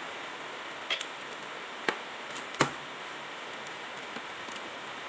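Three sharp clicks about a second apart, the last the loudest, from hands handling the engine parts and connectors of a motor scooter, over a steady hiss. The engine is not running.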